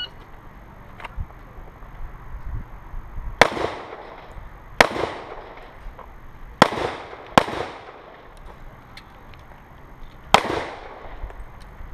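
Handgun fired five times at uneven intervals: two shots about a second and a half apart, two more close together a couple of seconds later, and a last one after a three-second pause. Each shot has a short echo that trails off.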